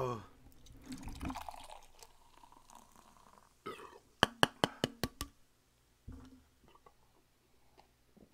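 Canned beer being poured into a glass beer mug, with a foamy, splashing pour through the first few seconds. About four seconds in there is a quick run of six sharp knocks, the loudest sounds here, and a short knock a little after six seconds.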